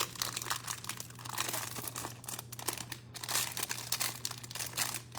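Crinkling and tearing of packaging as a trading-card hanger box is opened, an irregular crackle of handled plastic and paper throughout.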